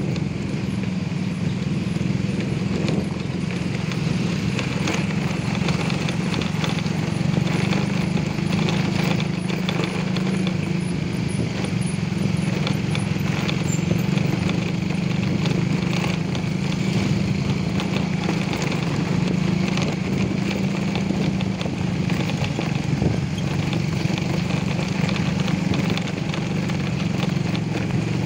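Motorcycle engine running steadily while riding over a rough stone road, with constant rattling and knocking from the stones under the wheels.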